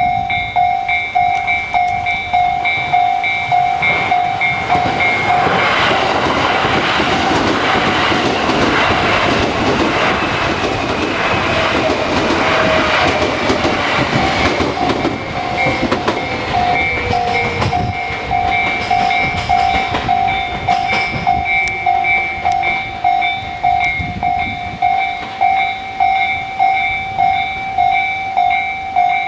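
Japanese railway level-crossing alarm ringing throughout in an even, repeating ding, about one and a half strikes a second. A train passes over the crossing for about ten seconds, its wheels clattering on the rails, with a whine that falls slowly in pitch as it goes.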